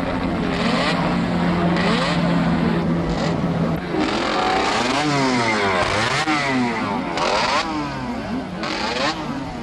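Many 125cc two-stroke Grand Prix racing motorcycles revving together while warming up before the start. Their engine notes rise and fall over one another as the throttles are blipped.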